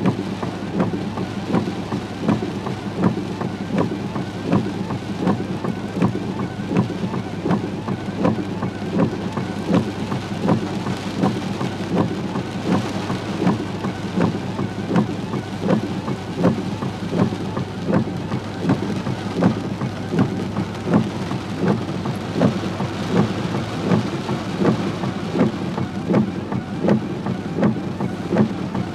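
Heavy rain pattering on a vehicle's windshield and body over the steady hum of the vehicle, with louder hits about once a second.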